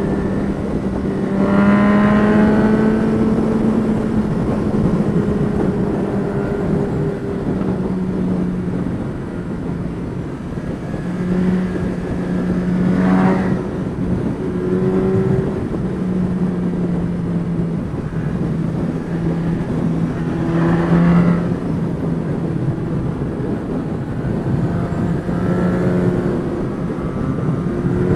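Honda CB1000R's inline-four engine pulling along at road speed, its note climbing in pitch about four times as it accelerates through the gears, under a steady rush of wind over the helmet-mounted microphone.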